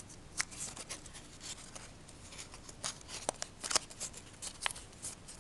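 Small sheet of origami paper rustling and crackling as fingers fold and crease it: a string of short, crisp crinkles, thickest a little past the middle.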